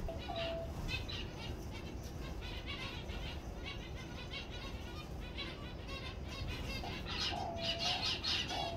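Aviary of small finches, zebra finches among them, chirping in a rapid high chatter that gets busier near the end, with a few short, steady, lower-pitched calls mixed in.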